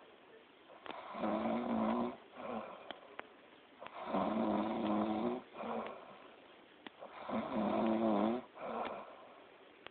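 A sleeper snoring loudly in a steady rhythm: three long, rasping snores about three seconds apart, each followed by a shorter, softer one.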